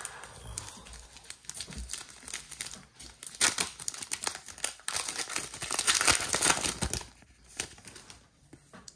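A plastic trading-card pack wrapper being torn open and crinkled, a dense crackling rustle that is heaviest in the middle of the stretch.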